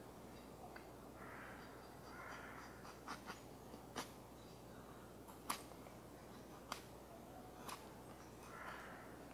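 Carving knife shaving thin slices off the edge of a green birch spatula: faint scraping with a handful of light, sharp clicks, the loudest about halfway through.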